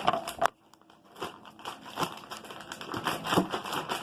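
Sticky slime being worked by hand and pulled out of its container: irregular wet crackling and squelching, with a short pause about half a second in.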